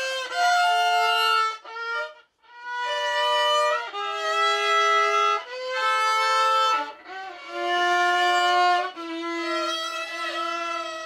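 Child playing the violin: a slow melody of long bowed notes, each held for about a second, with a short pause about two seconds in.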